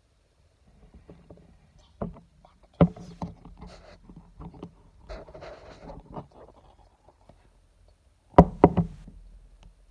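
Hands squishing and handling slime in a clear plastic tub, giving short crackles, squelches and clicks. There are sharp knocks about two and three seconds in, and a louder cluster of knocks near the end as the tub is tipped and handled against the table.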